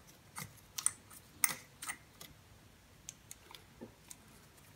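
Light metal clicks and taps as the variator nut and washer are fitted by hand onto the scooter's variator. There is a cluster of sharper clicks in the first two seconds, then fainter ones.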